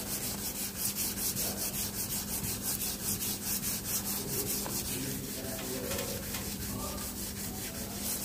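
Sandpaper rubbed by hand over a wet, soapy car door panel in quick, regular back-and-forth strokes, a steady rasping scrub. It is flattening a patch of wrinkled (lifted) paint before recoating. A faint steady low hum sits underneath.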